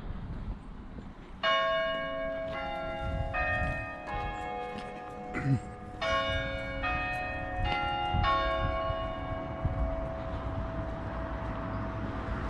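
Church tower bells chiming: about eight strokes at different pitches in two groups of four, each roughly under a second apart, the last notes ringing on and dying away.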